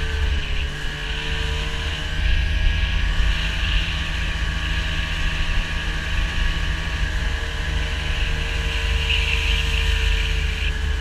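A vehicle engine running steadily at an even speed, with a heavy low rumble.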